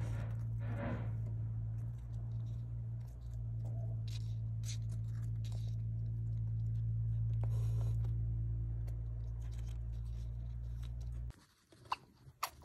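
A steady low electrical hum, the loudest sound, cuts off suddenly near the end. Over it come faint scratching and rustling as a hamster handles chewed cardboard scraps for a nest, then a few sharp clicks after the hum stops.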